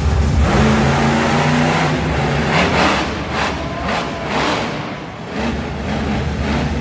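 Bone Shaker monster truck's engine revving hard, with several separate bursts of throttle about halfway through as it climbs onto a pile of crushed cars.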